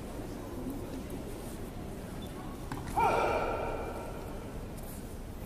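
A single sharp martial-arts shout (kiai) about three seconds in, dying away over about a second in the hall's echo, over a low steady hall background.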